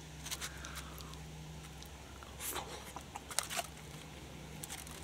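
Fingers picking through foil-wrapped nachos: scattered soft crackles of aluminium foil and corn chips, a few sharper clicks about two and a half to three and a half seconds in, over a faint steady low hum.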